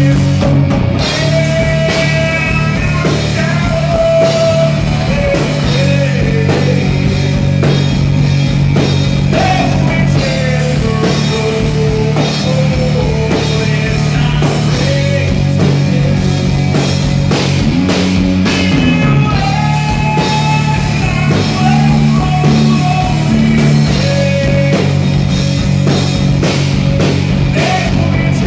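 Live rock band playing at full volume: electric guitar, bass guitar and drum kit, with a male lead vocalist singing over them.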